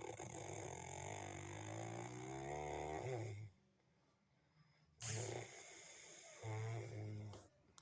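A sleeper snoring: one long snore of about three and a half seconds with a low steady drone, then after a short pause another breath and a second snore near the end.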